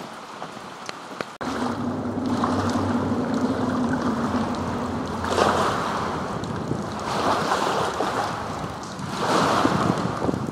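Light rain pattering at first. About a second and a half in it gives way to wind buffeting the microphone in strong gusts beside a swollen river, with water lapping. A low steady hum runs through the first few seconds after the change.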